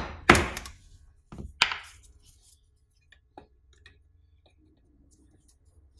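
Hammer blows knocking at a seized pin in the handbrake cable linkage: a sharp strike right at the start, two more about a second and a half in, then only faint small clicks of handling.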